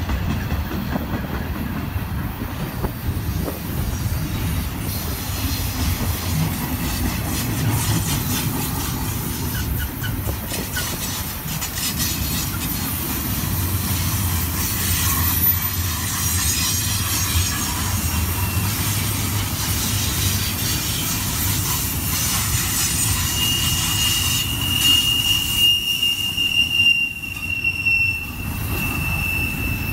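Union Pacific double-stack intermodal train rolling past: a steady low rumble and clatter of its wheels on the rails. A thin, high, steady wheel squeal joins in about three-quarters of the way through and keeps on.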